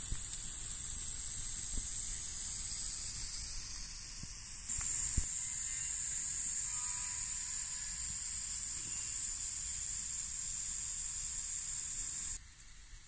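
Pop-up static spray sprinklers of a garden lawn irrigation system spraying water: a steady high hiss that changes slightly about five seconds in and stops sharply near the end.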